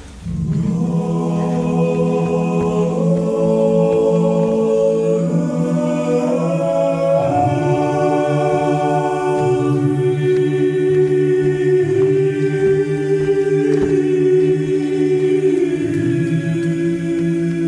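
Unaccompanied vocal ensemble singing slow, held chords over a steady low drone, the upper voices moving to a new chord every few seconds.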